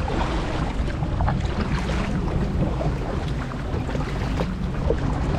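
Wind buffeting the microphone in a steady low rumble, over water lapping and splashing against a kayak.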